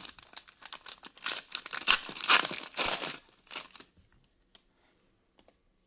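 A trading-card pack wrapper being torn open and crinkled by hand, loudest in the middle and dying away to a few faint clicks near the end.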